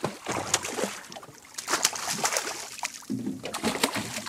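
Irregular water splashing at the side of a small boat, with scattered sharp clicks and knocks.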